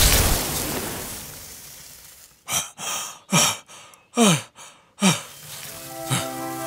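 A cartoon rooster panting hard, out of breath and worn out: about five loud, breathy gasps and sighs, each falling in pitch. Before them, a rush of noise fades away over the first two seconds.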